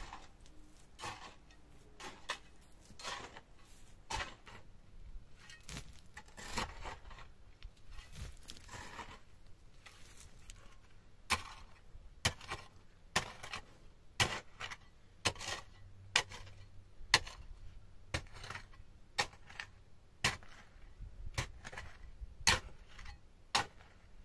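A small hand shovel chopping and scraping into loose dry soil, about one stroke a second. The strokes are soft scrapes at first and become sharper, louder strikes from about halfway through.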